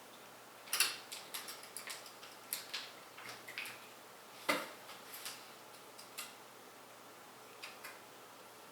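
Scattered light clicks and taps from PC parts and their packaging being handled. The sharpest come about a second in and again halfway through, and they thin out after that.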